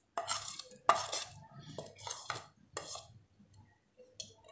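Metal spoon scraping and clinking against a plate in several short strokes as ground spices are pushed off it into a bowl.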